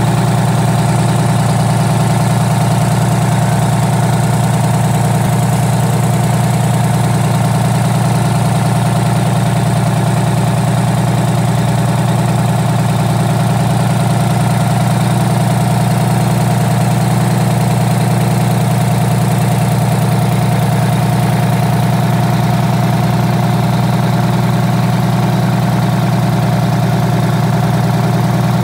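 Detroit Diesel 6V92 two-stroke V6 diesel engine idling steadily, with no revving.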